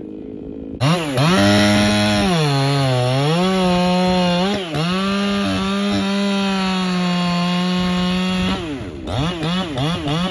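Ported Echo CS-4910 two-stroke chainsaw running at full throttle while cutting through a log. It comes in abruptly about a second in, and its pitch sags for a moment under load before holding steady. Near the end it drops off and gives several quick throttle blips.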